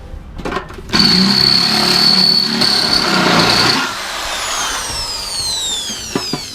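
Electric drill with a thick bit drilling out a rivet on the washing machine's drum support. It runs loud and steady with a high whine for about three seconds, then is let go and winds down, its pitch falling. A few light clicks come before it starts.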